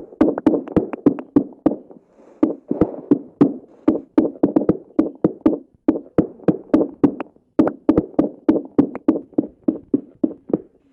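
Rapid, regular tapping or knocking on a hard surface, about five strikes a second, with short pauses now and then.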